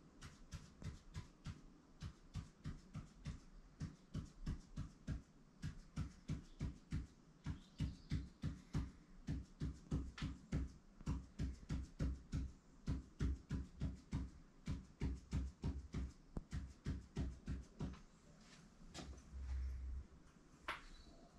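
Ink marker pen tapping and scraping on paper laid over a hard board, one short knock for each tally stroke at about three a second in a steady rhythm. The strokes stop near the end, followed by a single low thud.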